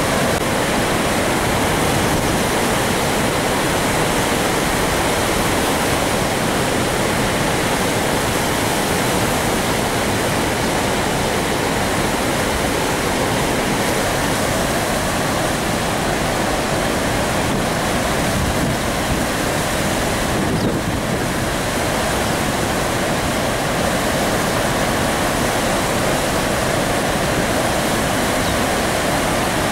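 Water rushing steadily through the open spillway gates of the Tungabhadra dam and churning below them, released because the reservoir is full.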